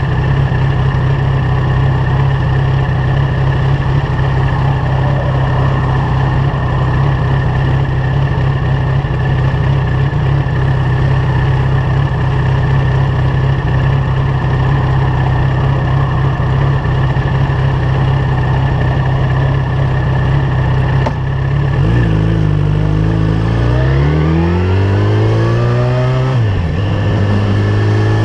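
Yamaha FZ1's inline-four engine, breathing through a LeoVince GP-style aftermarket exhaust, idling steadily. Near the end it revs up as the bike pulls away, its pitch rising, dropping at a gear change and rising again.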